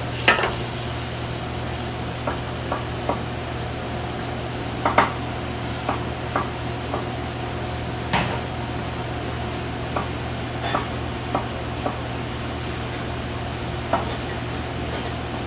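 Chef's knife knocking on a wooden cutting board at uneven intervals while eggplant is chopped into small pieces, the loudest knock about eight seconds in. A steady kitchen hiss and low hum run underneath.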